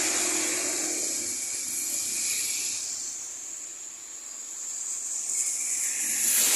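Tyres hissing on a wet road: a passing vehicle's spray fades away, and another vehicle approaches and grows louder near the end.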